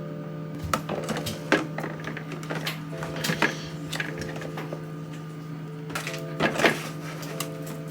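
Clicks and clatter of plastic bottles and containers being handled and set into a storage bin, loudest in a burst about six and a half seconds in, over soft background music holding steady chords.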